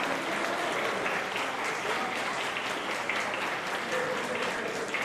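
Crowd applauding: a dense, steady patter of many hands clapping, with a few voices mixed in.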